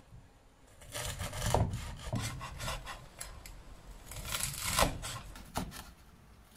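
Knife sawing through the crackling skin of freshly fried crispy pork belly on a wooden cutting board: uneven crunching, rasping strokes, loudest a little before five seconds in. The crunch is the sign of skin fried properly crisp.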